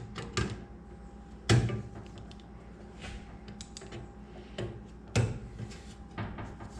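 Clicks and knocks of hand work inside an over-the-range microwave's housing while its vent plates and blower are being worked loose, with two louder knocks about a second and a half in and again near five seconds.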